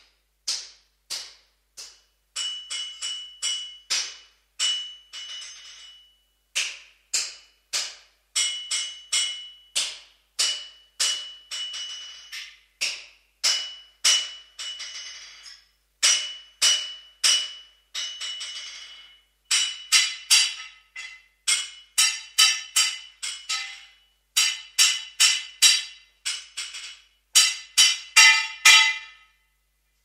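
Blacksmith's hammer striking metal in runs of several blows, about three a second with short pauses between runs, each blow ringing with a clear high tone. The blows grow louder with a fuller, many-toned ring in the last third.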